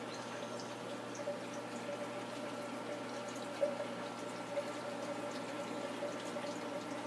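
Saltwater aquarium filtration running: a steady trickle and wash of water from the sump and return pump, with a steady hum. A few soft ticks near the middle.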